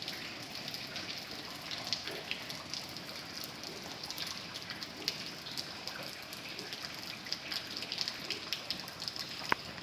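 Rain falling steadily, with many individual drops ticking sharply on a surface, and one louder click near the end.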